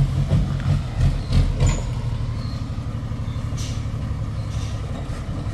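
Dump truck's engine running steadily, with a few knocks in the first two seconds.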